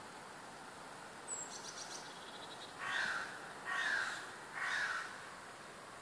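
A crow cawing three times, each harsh call about half a second long and slightly falling, roughly a second apart. Just before, a small songbird gives a brief high trill.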